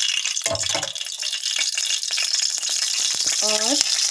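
Cooking oil sizzling as it hits and heats in a hot metal kadai, a steady hiss.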